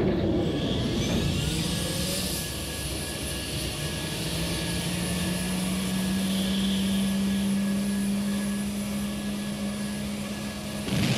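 Jet fighter's engines running: a whine that rises over the first couple of seconds, then holds as a steady drone over an even rush of noise.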